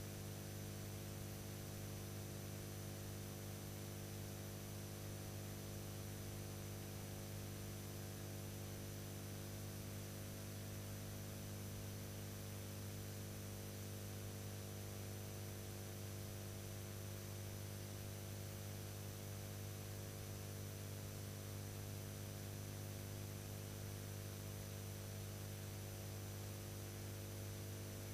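Steady electrical mains hum with its stack of overtones, a faint high whine and an even hiss, unchanging throughout: background noise on the soundtrack of a silent film transfer.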